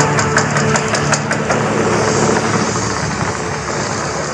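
The Mirage's artificial volcano erupting: a loud, continuous rumbling roar, with a run of sharp pops and crackles in the first second and a half, easing slightly toward the end.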